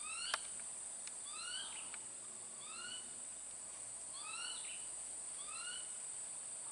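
A short chirping call that rises and then falls, repeated about every second and a bit, over a steady high-pitched insect drone. A single sharp click sounds just after the start.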